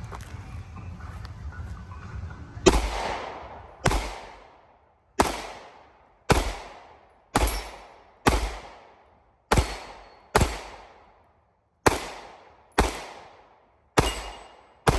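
A string of about a dozen gunshots, fired roughly one a second, each followed by a short echoing tail. The shooting starts a few seconds in, after a stretch of low rumbling background noise.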